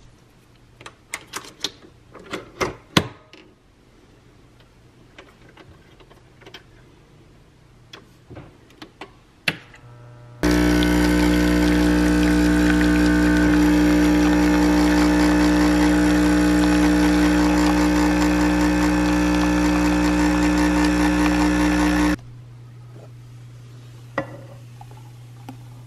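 Clicks and knocks of a Nespresso coffee machine being loaded and set going, then its pump buzzing loudly and steadily for about twelve seconds while the coffee pours into the mug. The buzz cuts off suddenly near the end, followed by a couple of small clicks.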